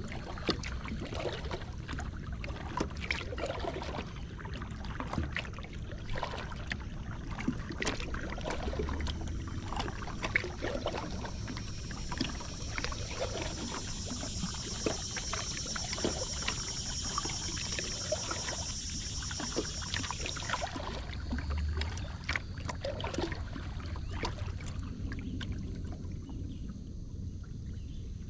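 Kayak being paddled: irregular splashes and drips as the paddle dips and lifts, with water lapping at the hull. A high, even buzz joins in for several seconds midway, then stops.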